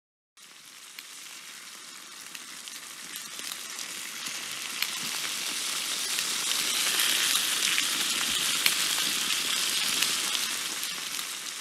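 Sizzling, crackling sound effect with scattered sharp pops. It comes in about half a second in, swells to its loudest past the middle, then fades toward the end.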